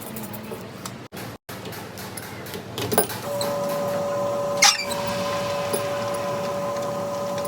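Clatter and clicks, then about three seconds in a machine starts up and runs with a steady hum; a sharp clack comes shortly after it starts.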